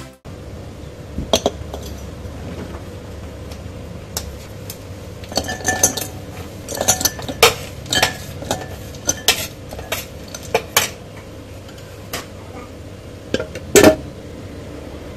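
Chunks of umbrella chocolate dropped into a food chopper's clear bowl, clicking and clinking against the bowl and each other in scattered knocks, with a louder clatter near the end.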